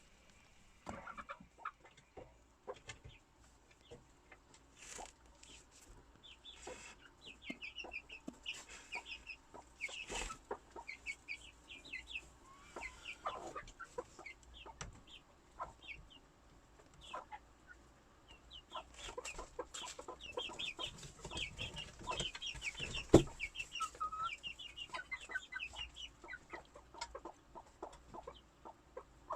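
Small poultry chicks peeping in rapid runs of short high chirps, with soft clucking and scattered taps. There is one sharp knock about three-quarters of the way through.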